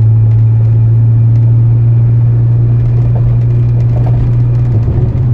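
Steady low drone of a car's engine and road noise, heard from inside the moving car, wavering slightly near the end.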